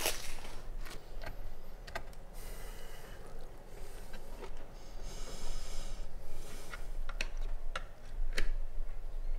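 Folded paper being handled on a table: short spells of rustling and crinkling with scattered small clicks, over a low steady hum.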